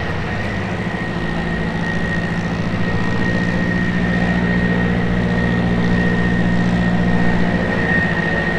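Fighter jet engine running at low power: a steady high whine over a low engine drone, growing gradually louder.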